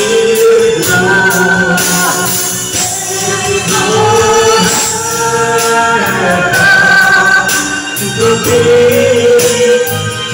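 Male voices singing into microphones over an amplified karaoke backing track, with long held notes and a steady beat.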